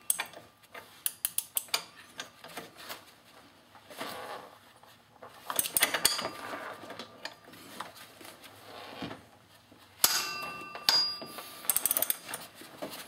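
Wrench clinking against a pulley-puller tool as its nut is turned in short strokes, drawing the press-fit power steering pump pulley off a Ford Shelby GT500's pump shaft. A sharp metallic pop with a brief ringing comes about ten seconds in, followed by more pops: the pulley starting to move on the shaft, which is normal.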